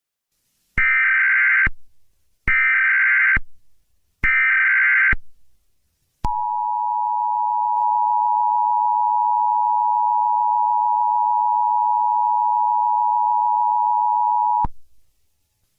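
Emergency Alert System broadcast tones: three one-second bursts of SAME digital header data, then the EAS two-tone attention signal, a steady dual-pitched tone held for about eight seconds before cutting off abruptly.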